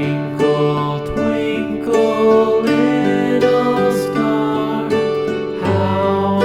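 Instrumental music: a gentle melody on plucked strings, the notes changing every half second or so.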